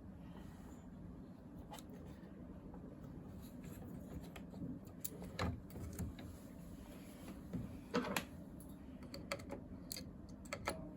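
Irregular small clicks and knocks of scanner parts being handled and fitted into place by hand, about eight in all, over a low steady hum.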